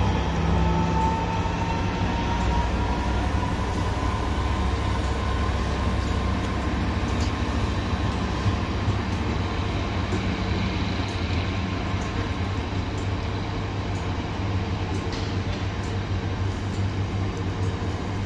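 Freight train of open box wagons rolling steadily past, a continuous rumble of wheels on rail with a few sharp clicks. A thin whine rises slightly over the first few seconds.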